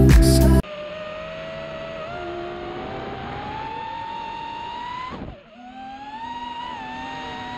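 Music cuts off suddenly, and a multirotor drone's motors and propellers whine. The pitch slowly rises, drops away briefly a little after five seconds in, then climbs back up.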